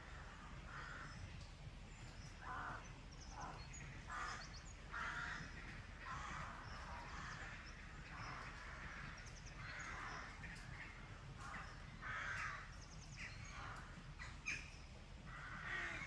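Crows cawing over and over in woodland, harsh calls coming irregularly, often several in quick succession. Faint high chirps of small birds come in now and then.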